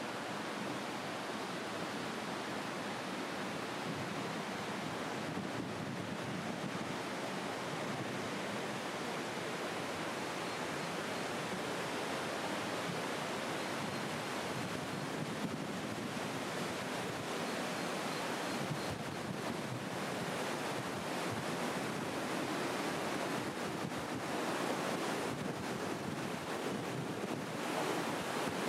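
Steady rushing of fast-flowing water, growing a little louder near the end.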